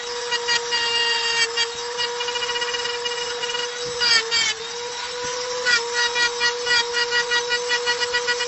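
Mini electric rotary tool whining steadily as its bit engraves a stone slab, the pitch sagging briefly about halfway through. Scratchy grinding pulses come as the tip is stroked against the stone, quickening to about three a second in the second half.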